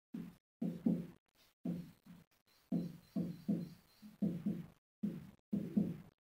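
Marker pen writing on a whiteboard: a string of short, muffled strokes and taps against the board, irregular and often in quick pairs.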